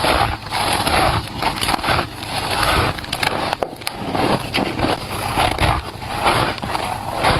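Close-miked biting and chewing of shaved ice: crunching, squeaky bites, one after another.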